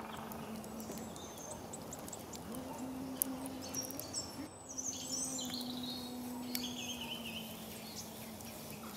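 Forest ambience with birds chirping and a campfire crackling now and then, over a low steady hum.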